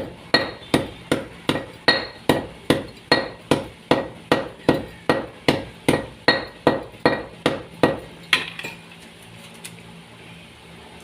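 Hammer striking in a steady rhythm, about two to three blows a second, each with a short metallic ring. It stops about eight seconds in.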